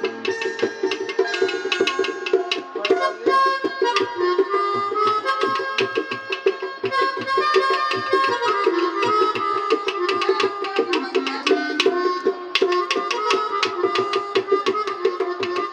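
Instrumental ringtone music: a fast, dense drum rhythm under a melody line of held notes that step up and down in pitch.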